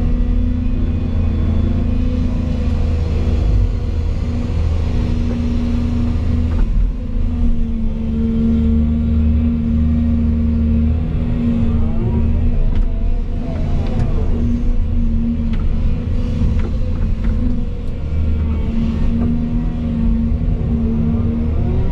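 Volvo EC220 excavator's diesel engine running steadily under working load, heard from inside the cab. Over it the hydraulic whine rises and falls in pitch as the boom, arm and bucket move.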